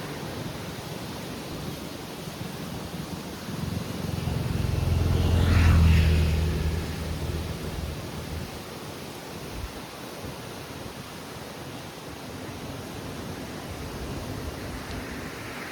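Strong wind blowing over the microphone as a steady rushing noise. A louder low rumble swells from about four seconds in, peaks near six seconds and fades away.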